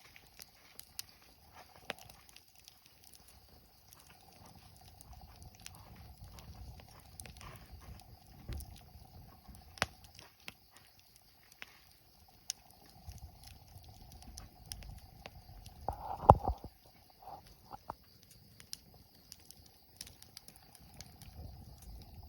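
Wood fire crackling, with scattered faint pops and snaps over a faint steady high-pitched background hum, and a louder brief clatter about sixteen seconds in.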